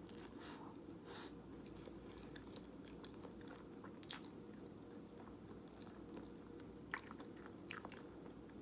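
Quiet chewing of a mouthful of jjajangmyeon noodles, with a few short wet mouth clicks, the clearest about four seconds in and near the end, over a low steady hum.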